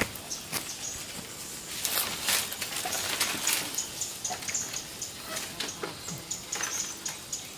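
Birds chirping in short, high, repeated notes, with soft swishes of air from a bamboo-strip hand fan being waved.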